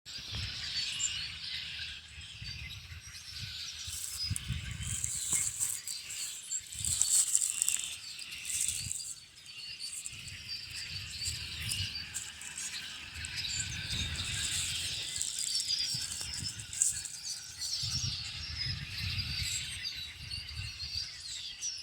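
A large flock of red-winged blackbirds calling all at once, a dense, continuous chorus of overlapping chirps, trills and squeaks, with a low, gusty rumble underneath.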